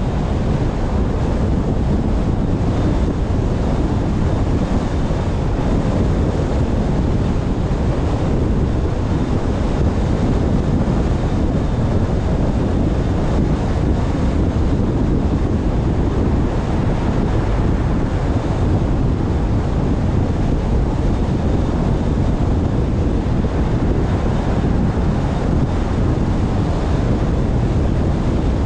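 Steady low rush of wind over the microphone mixed with tyre and road noise from a car driving at a constant speed.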